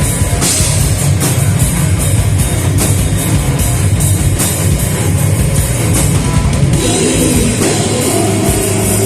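Heavy metal band playing live at full volume, with the drum kit prominent: dense, rapid drum and cymbal hits under the band. The band shifts into a new part about seven seconds in.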